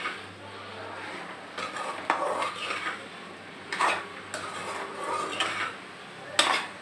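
Perforated metal ladle stirring chopped okra in a metal pot, scraping along the pot's sides and bottom, with three sharper clanks against the pot about two, four and six and a half seconds in.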